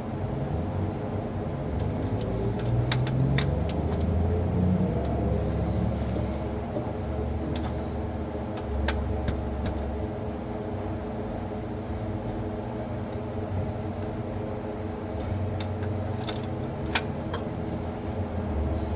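A steady mechanical hum with a low rumble that swells and fades, like a motor running, with a few sharp clicks scattered through it.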